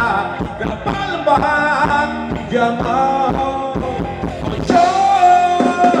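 Live band playing Thai ramwong dance music with a singer, with a long held sung note near the end.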